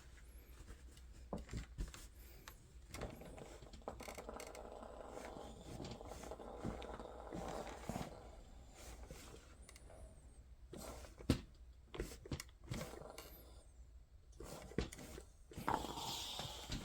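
Household iron pressed and slid over a paper towel laid on a jacket to heat-set a patch: faint rustling of paper and fabric with scattered light knocks, one sharper knock a little past the middle.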